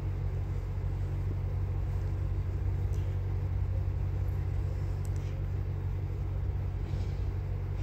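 A steady low hum, with a few faint short clicks about three, five and seven seconds in.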